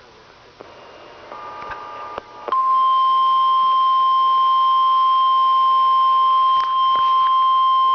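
Emergency Alert System attention tone for a tornado warning: one steady, loud, single-pitch beep that starts abruptly about two and a half seconds in and holds unbroken. A few faint short tones come before it.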